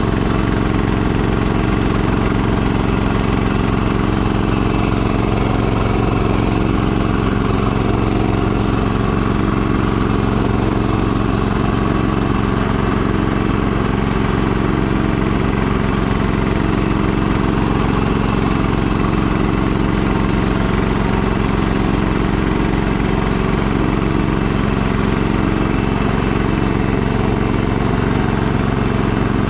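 Gas snowblower engine running steadily under load as the machine clears snow and throws it out of the chute.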